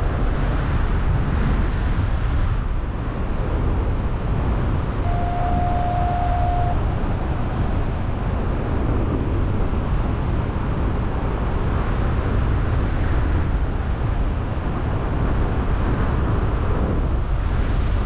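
Strong wind buffeting the camera microphone of a paraglider in flight, a loud steady rushing roar. About five seconds in, a steady tone sounds for nearly two seconds.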